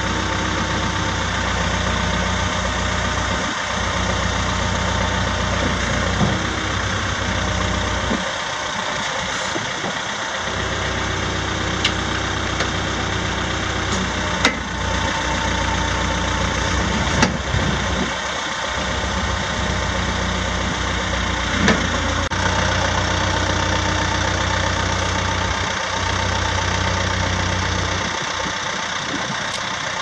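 Terex 970B backhoe's Perkins four-cylinder diesel engine idling steadily, with a few short sharp clanks here and there.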